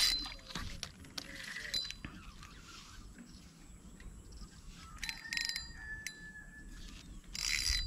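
A fishing reel being wound in several short bursts of mechanical clicking.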